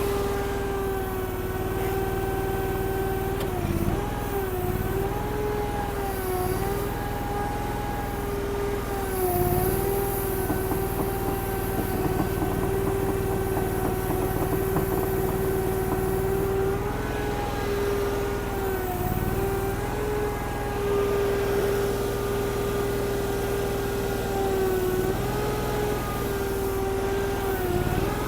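Derette DRT450 mini skid steer's engine running steadily at high throttle, its pitch dipping briefly several times as the hydraulics take the load of a roughly 1,000-pound pallet of gravel bags being lifted.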